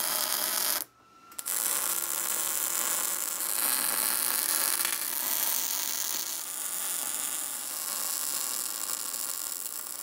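Wire-feed welder arc crackling steadily as it lays beads on steel angle iron. The arc breaks off briefly about a second in, then runs on unbroken.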